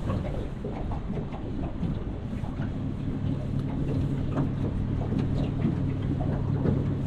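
Jet boat running on the river, with water and wind rushing past. A steady low engine hum settles in about three seconds in.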